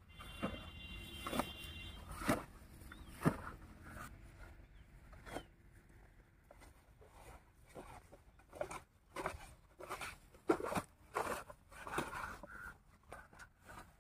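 Flattened plastic lay-flat irrigation pipe crackling and rustling as it is unrolled and dragged out over grass, with footsteps, in irregular sharp crinkles and knocks.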